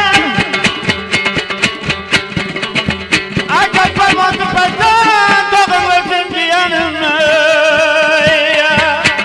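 Afghan folk song: a man sings long, wavering held notes over rapidly strummed dambura and rubab.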